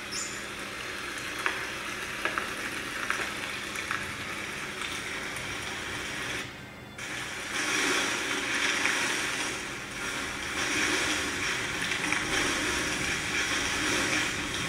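Dry leaves rustling and crackling, as from the leaf installation's sound, a continuous crunchy hiss. It cuts out briefly just before halfway, then comes back louder while a person walks onto the projected leaves.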